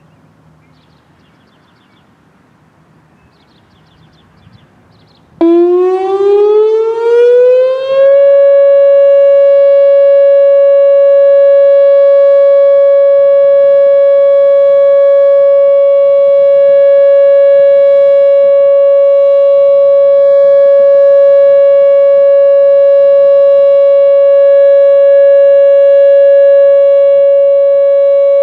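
Whelen OA-4 outdoor warning siren sounding its steady Alert tone for a routine test. It comes on suddenly about five seconds in, rises in pitch for about three seconds, then holds one loud, unwavering tone.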